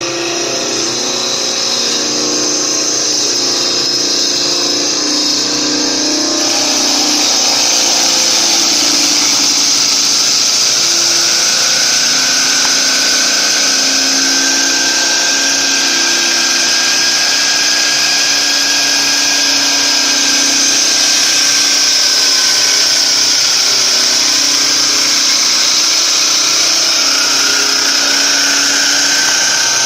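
Cosen CNC315K wood lathe turning a stair railing spindle: a steady machine whine and high hiss, getting louder about six seconds in.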